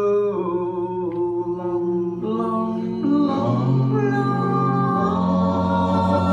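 Male a cappella vocal group singing in close harmony, holding long sustained chords that shift to new chords a few times.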